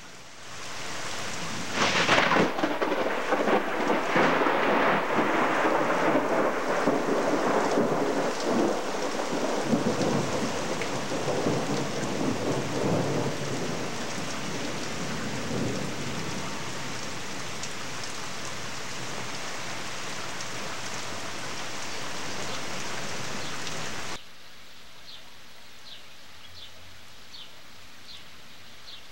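Thunderstorm: a loud thunderclap about two seconds in, then a long rolling rumble over steady heavy rain. The storm sound cuts off abruptly about three-quarters of the way through, leaving a much quieter background.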